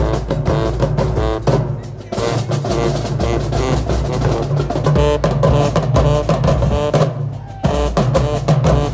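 Loud music with drums and a heavy bass beat, briefly thinning out about two seconds in and again about seven seconds in.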